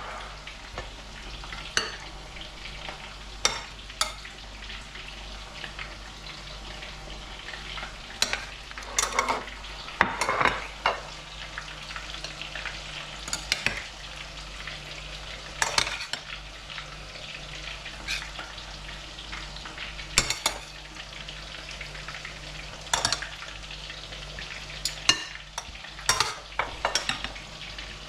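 Chicken bhajis frying in hot oil with a steady sizzle, broken by frequent sharp clinks and knocks of utensils and dishes.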